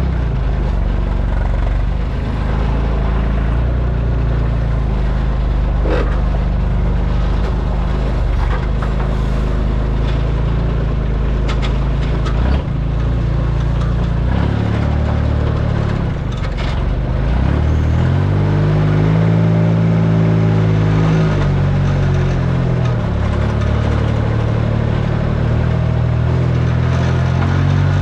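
Delivery truck engine running steadily, its pitch climbing about eighteen seconds in, holding for a few seconds, then dropping back.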